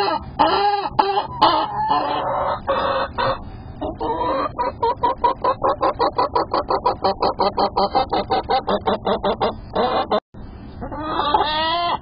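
Young laying hens calling loudly: a few drawn-out squawking calls, then a fast run of short clucks at about five a second for several seconds. The calls break off for a moment near the end, then the drawn-out calls start again.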